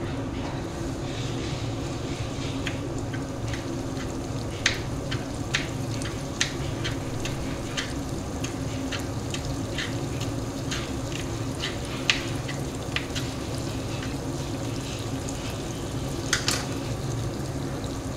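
Thick egg curry masala gravy simmering on a low flame in a kadai, sizzling and spitting with irregular sharp pops, over a steady low hum.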